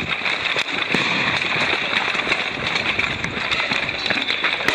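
Firecrackers and other pyrotechnics popping and cracking again and again over a dense, steady din.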